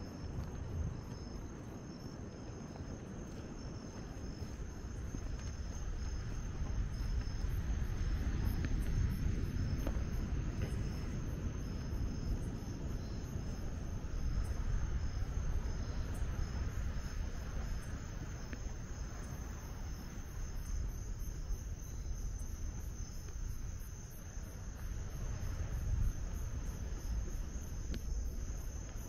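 Crickets chirping steadily in a chorus of high, pulsing trills, over a steady low background rumble.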